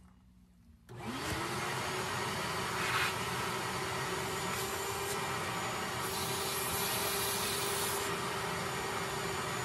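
A Shop-Vac wet/dry vacuum switches on about a second in, its motor whining up to speed and then running steadily. It is sucking the leftover water out of a camper van water heater's drain hose, and its suction turns hissier for a couple of seconds past the middle.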